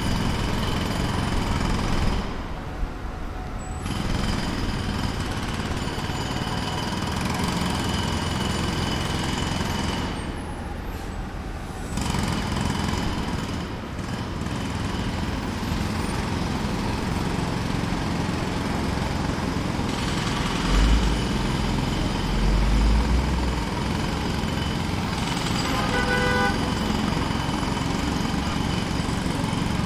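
Distant jackhammer pounding continuously amid city traffic, with two short breaks in the first half. A brief horn-like tone sounds about 26 seconds in.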